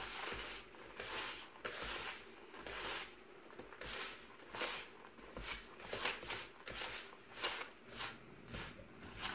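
Fingers rubbing a crumbly mix of flour, sugar, lard and butter against a bowl, a soft scraping swish with each stroke, one or two a second, as the fat is rubbed into the flour until it looks like sand.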